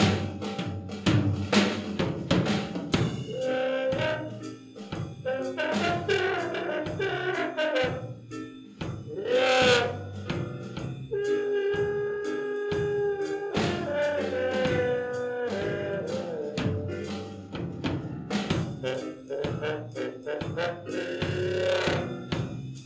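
Swing big band playing, with a brass section over drum kit, and a long held note about halfway through.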